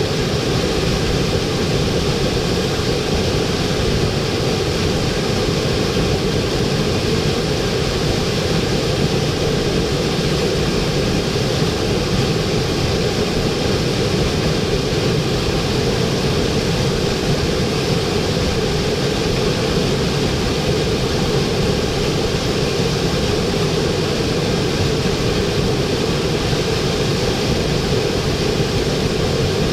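Waterfall pouring: a steady, unbroken rush of falling water, full and low-heavy.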